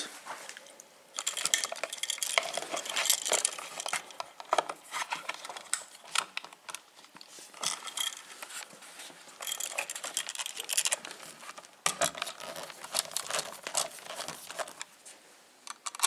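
Small metallic clicks, scrapes and rattles in irregular clusters as a light switch on its metal mounting strap is handled and pushed into an electrical wall box.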